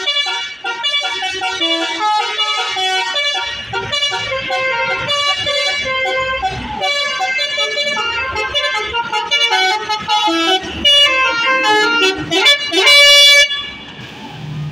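Basuri telolet horn on a tour bus playing a fast melody of short stepped notes, with the bus engine running underneath from about four seconds in. Near the end the notes slide upward into one loud held blast that cuts off suddenly.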